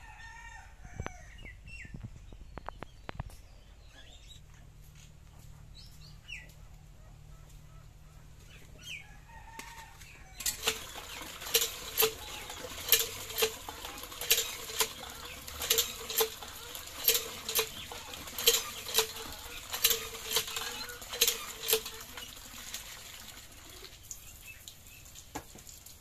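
Iron hand pump being worked at about one and a half strokes a second, each stroke a squeak and a clank, with water gushing into a metal bucket. The pumping starts about ten seconds in and stops a couple of seconds before the end.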